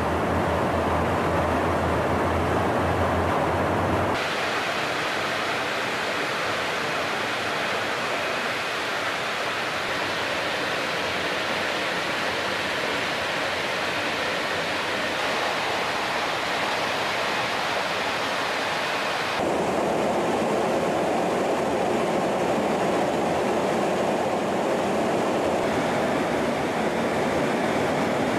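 Steady in-flight cabin noise inside a KC-135 Stratotanker, the hiss of its engines and the airflow, with a low hum in the first few seconds. The tone of the noise shifts abruptly about 4 seconds in and again near 19 seconds.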